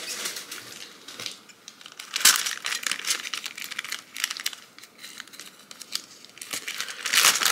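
Plastic packaging crinkling and rustling as it is handled to unwrap nail polish bottles, with louder bursts of crackle about two seconds in and again near the end.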